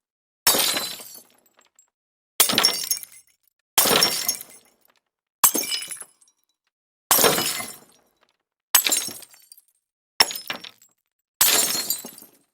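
A series of breaking-glass sound effects: eight separate smashes, each starting suddenly and fading out within about a second, with dead silence between them.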